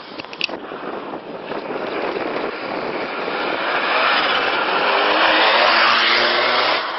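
A rally car driven flat out towards the listener: engine and road noise build steadily over several seconds, peak as it passes close by, then fall away sharply near the end.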